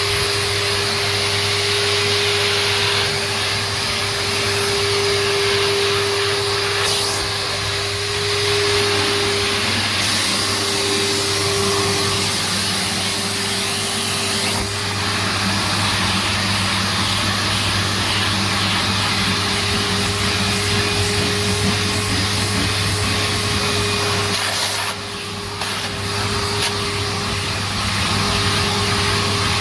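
Numatic NTD570 vacuum cleaner running steadily, its motor whine and airflow rush shifting a little as the nozzle is worked over the stairs. The sound drops briefly about five seconds before the end, then picks up again.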